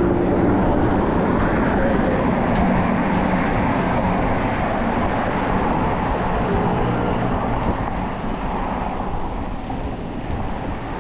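City street traffic and wind noise heard from a moving bicycle: a steady noise with the hum of motor vehicles running close by, easing off slightly near the end.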